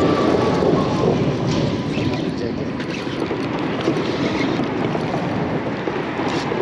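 Steady rush of wind on the microphone over moving water. A faint high whine fades out in the first second or so.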